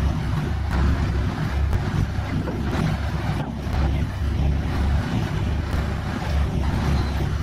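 A walking piling rig's power unit and hydraulics run with a steady low rumble that swells and dips while the rig steps along on its hydraulic foot pads.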